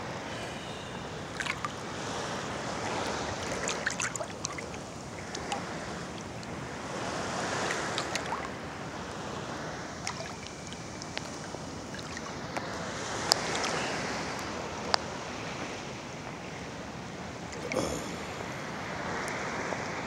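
Small ocean waves lapping and sloshing around a swimmer close to the microphone, swelling and easing every few seconds, with scattered sharp clicks.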